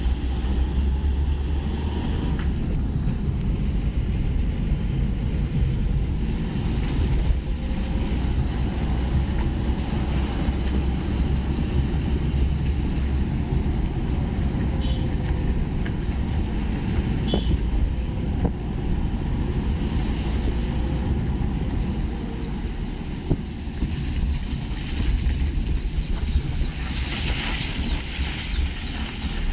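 A car driving with wind buffeting the microphone at an open window over a steady low road rumble.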